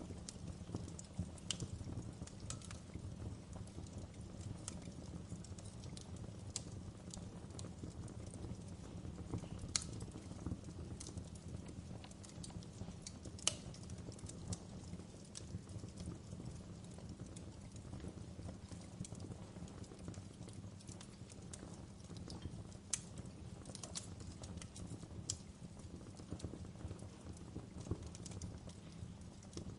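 Wood fire crackling: irregular sharp snaps and pops over a low steady rumble of the flames, with a few louder pops about ten, thirteen and twenty-three seconds in.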